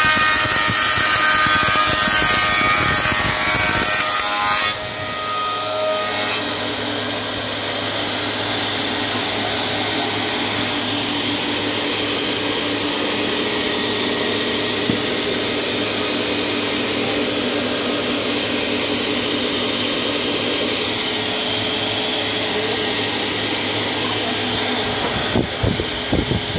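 Woodtech FSM5020C four-side moulder running, its cutterheads planing and profiling a wooden board with a loud, dense cutting noise. About five seconds in the sound drops a little, and the machine runs on with a steady hum and a high whine, with a few knocks near the end.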